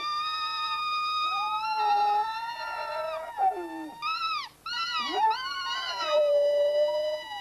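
A dog howling along to a person's whistling: long, held howls with sudden downward swoops in the middle, over a thin whistled tone.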